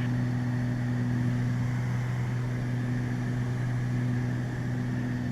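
Beechcraft Baron's twin piston engines and propellers droning steadily, heard in the cockpit: an even, unchanging hum with a constant hiss over it.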